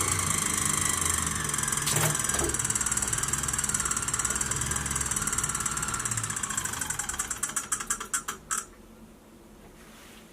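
Cycleops Fluid 2 turbo trainer spinning with the annoying rhythmic noise it has developed. The beat slows and fades as the wheel coasts down, then stops about eight and a half seconds in, with a couple of knocks about two seconds in.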